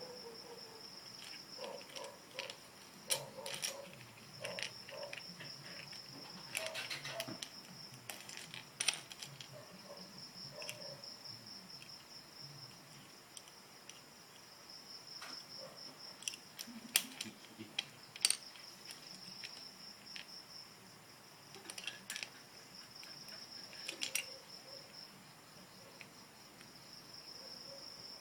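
Crickets chirping steadily in the background, with scattered sharp clicks and short clatters of plastic Lego bricks being handled, the loudest few about a third and two-thirds of the way in.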